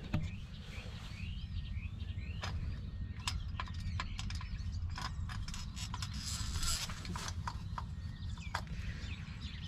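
Scattered sharp clicks and knocks from metal parts being handled and fitted on the machine, over a steady low rumble, with a few bird chirps in the first few seconds.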